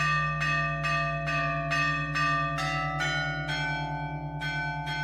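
Russian Orthodox church bells ringing: small bells struck in an even run of about two to three strikes a second, each left ringing, over the steady pulsing hum of a large bell. The higher bells step down in pitch a few times through the run.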